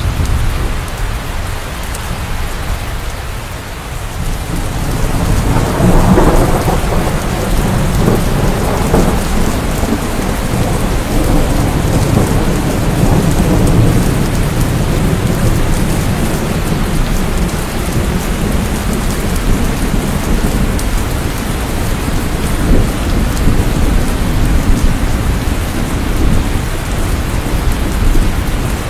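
Steady heavy rain. A deep low rumble swells about five seconds in and rolls on under the rain.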